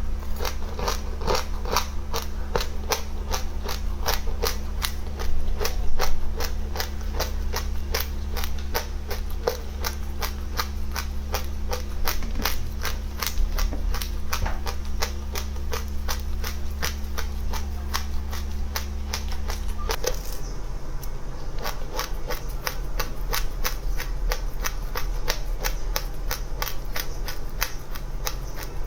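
Crunchy chewing of dry seeds close to the microphone: a rapid, even crunch about three times a second, over a steady low hum that changes pitch about two-thirds of the way through.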